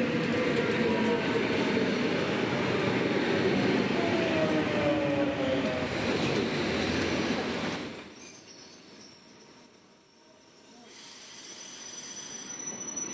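EP2D electric multiple unit slowing into the platform: running noise with a whine that falls in pitch. About eight seconds in the rumble drops away, leaving a high-pitched wheel and brake squeal of several steady tones.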